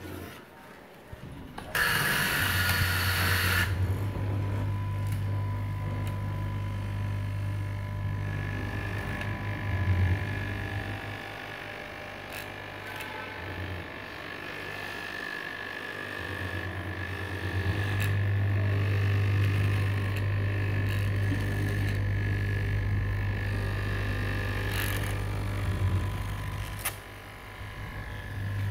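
Electric straight-knife fabric cutting machine running with a steady low hum as its upright blade cuts down through a stack of T-shirt fabric layers. It starts about two seconds in with a short hiss, weakens for a few seconds in the middle, and eases off briefly near the end.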